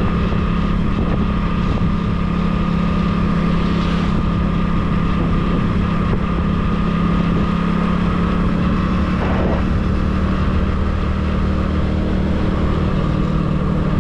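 A vehicle's engine running at a steady cruising speed, a constant drone with a steady higher whine above it, with wind buffeting the microphone.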